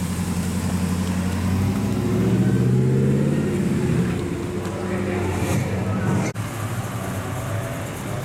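Dodge Dakota pickup's engine idling, then revving and rising in pitch as the truck pulls away. After a cut near the end, other engines idle steadily as two late-1960s Dodge Darts roll up.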